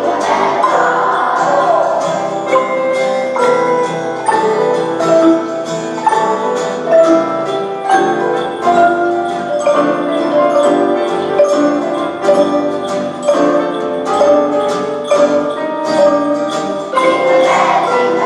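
Instrumental passage of a children's Christmas song played on Orff xylophones and metallophones, with struck ringing notes over a steady beat. The children's choir sings at the start and comes back in near the end.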